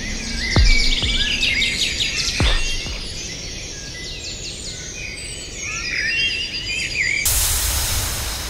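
Birds chirping and calling in many short notes, mixed with a soundtrack that has a couple of quick deep falling swoops. About seven seconds in, a steady rush of noise takes over.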